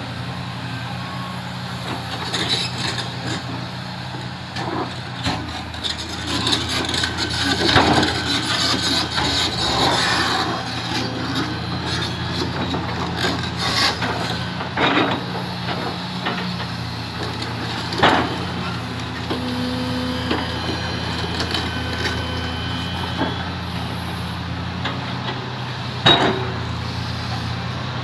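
Komatsu PC350 hydraulic excavator's diesel engine running steadily under load while the machine rolls a granite block, with steel on stone grinding and scraping through the first half and several sharp knocks scattered through, the loudest near the end.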